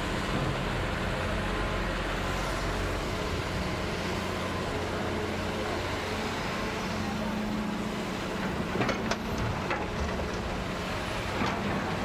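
Hitachi hydraulic excavator's diesel engine running steadily under load as it swings and loads. About nine seconds in, and again near the end, come short clusters of knocks and rattles as soil and rocks are dumped into the steel dump-truck bed.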